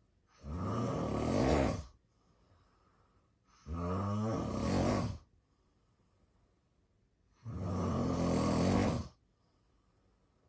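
A man snoring in his sleep: three loud snores, each about a second and a half long, coming about every three and a half seconds with quiet pauses between.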